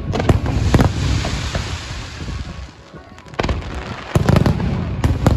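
Fireworks going off: a few sharp bangs followed by a crackling hiss, a brief lull, then another volley of bangs near the end.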